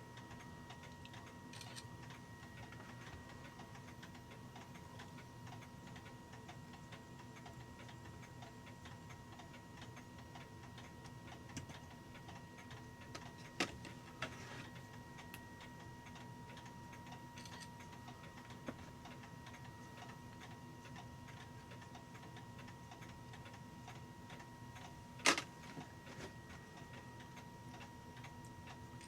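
Steady, quiet ticking of clocks running with a faint steady high hum, broken by a few sharp clicks as parts of a clock movement are handled, the loudest about 25 seconds in.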